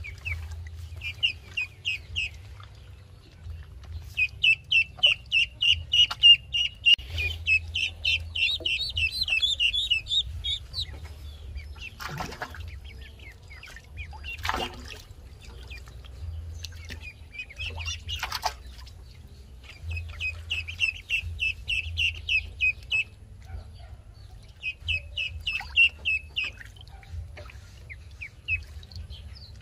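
Young ducklings peeping in bouts of rapid, high-pitched peeps, with three brief sharp noises in the middle.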